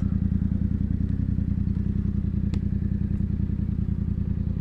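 Yamaha FZ-07 (MT-07) 689 cc parallel-twin engine idling steadily through an Ixil L3XB aftermarket exhaust, with an even, pulsing low note.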